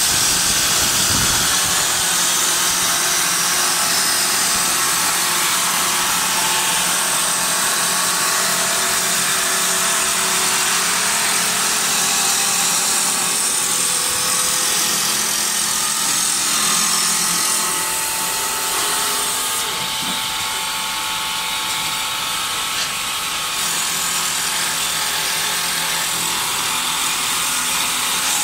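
Automatic wood lathe for turning rolling pins running, a steady machine hum with a high hiss over it, dipping slightly in level about two-thirds of the way through.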